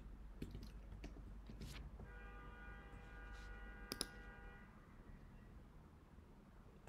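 Faint computer clicks, with a sharper mouse click about four seconds in. From about two seconds in, a soft bell-like chime of several steady tones rings and fades out over about two and a half seconds.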